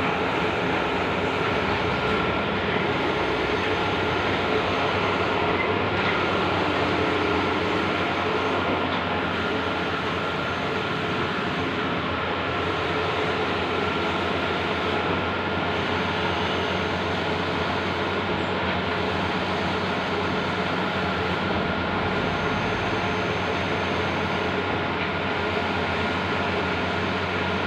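Large-format outdoor banner printer running: a steady machine whir and hum, with a regular change about every three seconds as the print head carriage sweeps across the media.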